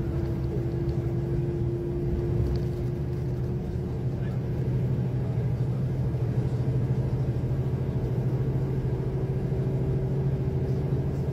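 Semi truck's diesel engine droning steadily with road noise, heard from inside the cab while cruising at highway speed.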